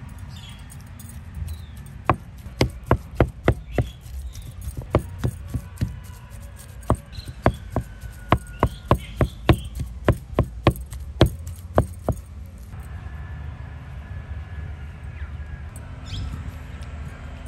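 Wooden masher mashing boiled potatoes in a terracotta bowl, knocking sharply against the clay two to three times a second. The knocking stops about two-thirds of the way through.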